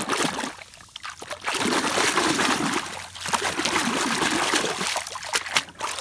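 Pond water splashing and sloshing as a hand scrubs a mud-caked plastic toy gun under the surface, with a short lull about a second in.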